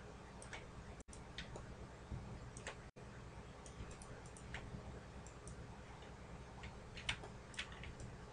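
Faint, irregularly spaced clicks of a computer mouse, a dozen or so, over a steady low hum.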